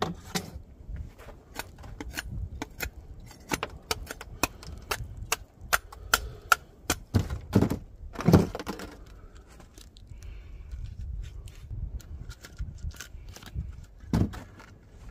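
Wooden clicks and knocks from quarters of a split log being handled and set against each other, with a few heavier thuds about halfway through and near the end.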